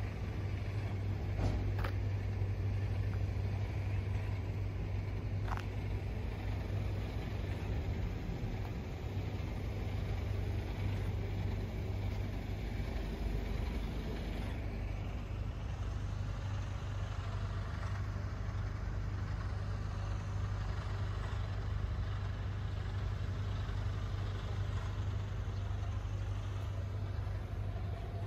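An engine idling steadily, heard as a low, even hum that holds the same pitch throughout.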